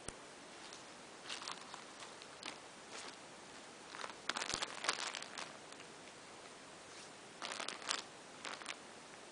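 Packaging crinkling and rustling as it is handled and opened, in short irregular bursts. The loudest bursts come about halfway through and again near the end.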